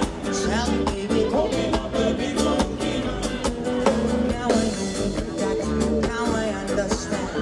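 Live rock band playing a song: drum kit keeping a steady beat under electric bass and guitar, with a man singing into a microphone.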